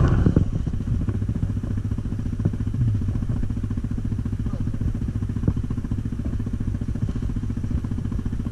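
Stels Guepard 850 ATV engine running at low, steady revs with an even pulsing beat and no revving; a couple of light knocks sound over it.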